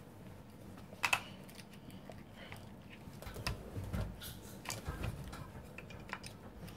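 Small clicks and light knocks from handling a plug-in power adapter and its plug, with a sharper click about a second in and a few dull thumps around the four-second mark.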